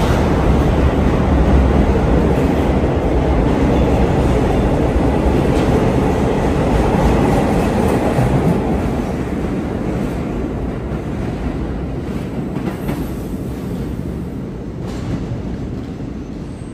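R42 refuse train departing, a loud steady rumble of wheels on rail that fades gradually over the second half as the train pulls away.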